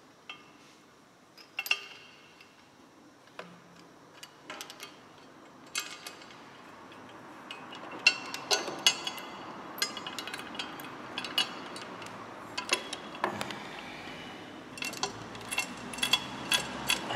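Irregular metallic clicks and clinks of a steel engine crash bar, with its bolt and spacer, being handled and lined up against a motorcycle's boxer engine. The taps are sparse at first and come thicker from about halfway through.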